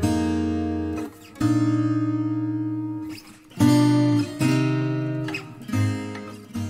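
Background music: acoustic guitar strumming single chords, about five of them, each left to ring and fade before the next.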